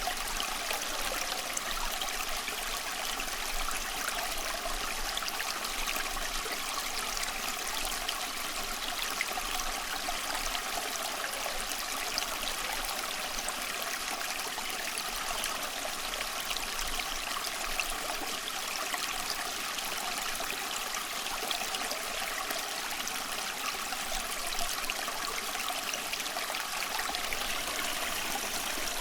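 Running water of a stream or brook, a steady trickling and splashing with no pauses or single events.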